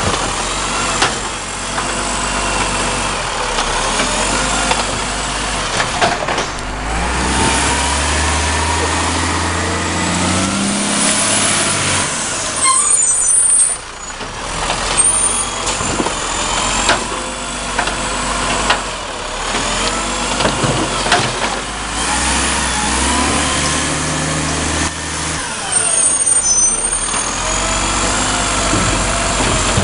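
Side-loader garbage truck running at the kerb while its hydraulic arm grabs, lifts and empties wheelie bins. The engine note rises twice as the arm works, with knocks of bins and metal and short hisses of air.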